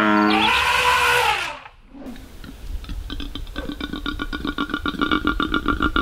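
The tail of a short intro sound with animal calls cuts off about a second and a half in. From about two and a half seconds a male koala is bellowing to attract a mate: a rapid train of pulses that grows steadily louder.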